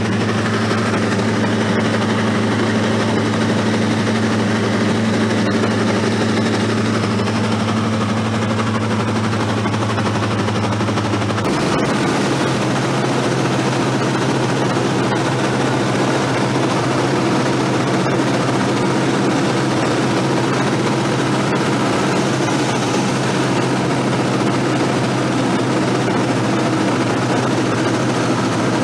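Cessna 172's diesel engine and propeller droning steadily in flight. About eleven seconds in the steady note changes abruptly to a rougher, noisier sound, matching the moment of landing.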